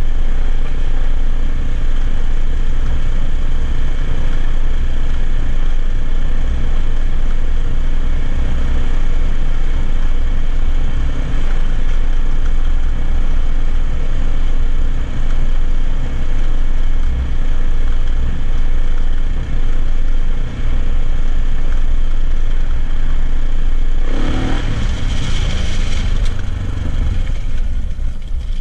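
AJP PR7's single-cylinder engine running at a steady riding pace, with wind and road noise. About 24 seconds in a louder rush of noise lasts a couple of seconds, then the engine sound eases off.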